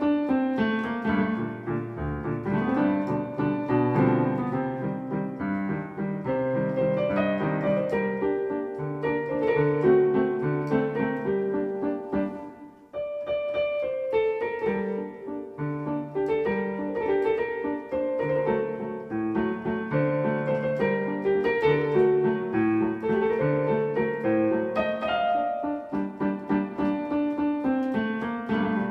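Electronic keyboard playing a liscio-style waltz, a melody over moving bass notes, with a brief pause a little before halfway through.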